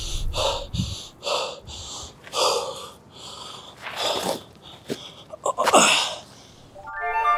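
A man breathing hard and gasping: a quick run of short, breathy pants, then a few longer, louder gasping breaths a second or two apart. Music with held notes comes in near the end.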